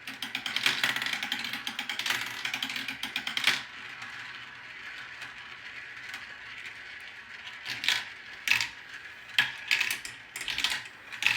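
Marbles rolling and clattering down a marble run track: a dense run of clicks for the first few seconds, then a steadier rolling rumble, then a handful of separate clacks near the end.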